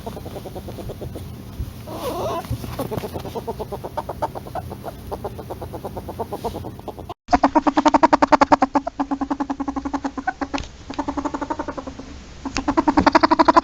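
Polecat chattering: a rapid train of short clucking pulses. About seven seconds in the recording cuts to a louder bout of the same fast pulsed chatter, which comes in spells with brief pauses.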